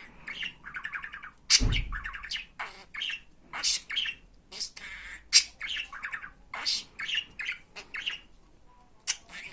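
Budgerigar chattering: a quick run of short chirps, squawks and warbled notes, with a single loud thump about a second and a half in.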